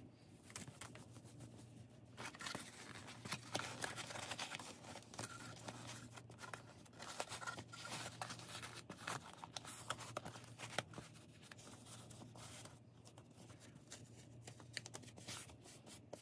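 A cotton sock being worked down over a cardboard insert: soft, irregular rustling and scraping of fabric against cardboard and paper, with small clicks, over a faint steady low hum.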